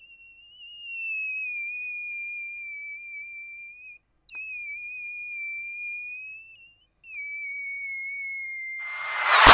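Cartoon sound effect of air squealing out of a balloon's opened neck: a high, steady whistling squeal in three long stretches with two short breaks, its pitch dropping near the end, then a sudden loud burst of noise.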